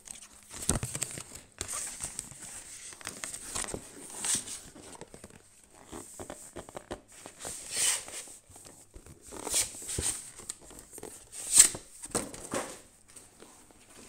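A cardboard graphics-card box and its packaging being handled and opened: irregular rustling, crinkling and tearing with scattered knocks, the sharpest knock about three-quarters of the way through.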